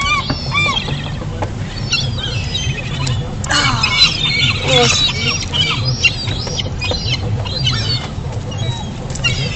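A crowd of gulls calling over food, many short arching calls overlapping, thickest about four to five seconds in, over a steady low hum.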